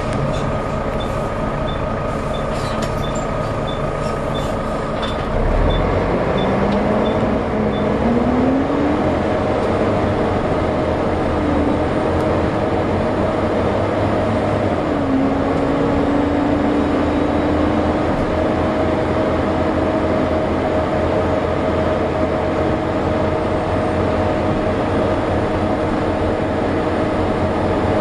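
Volvo B7TL double-decker bus's six-cylinder diesel idling with a regular tick about twice a second, then pulling away about five seconds in: the engine note rises in pitch through several gear changes and settles into a steady high whine, the hoover-like whine these buses are known for.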